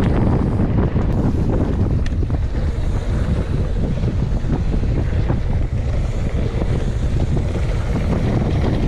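Wind buffeting the microphone of a camera riding along on a mountain bike descending a trail, a constant low rumble with many small rattles and knocks from the bike over rough ground.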